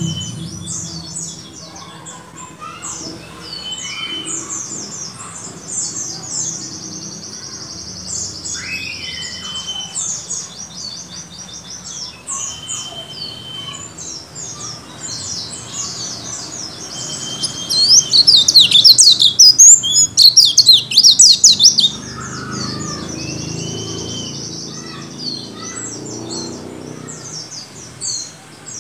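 Caged white-eye (pleci) singing a fast, continuous twittering chatter of high notes, with a louder, denser burst of song a little past halfway through.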